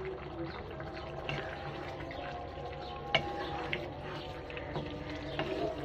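Thick mung dal and fish curry bubbling in an open pan on the stove, with many small pops. A wooden spatula stirs it, knocking sharply on the pan about three seconds in.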